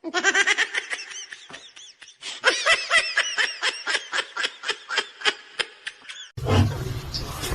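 An animal's rapid series of short pitched calls, about four or five a second. They stop abruptly about six seconds in, and a steady low hum and noise follow.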